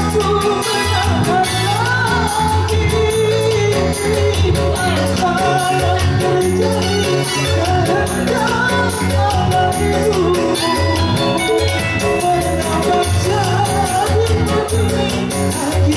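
Music: a voice singing a melody over an upbeat backing with a steady bass beat.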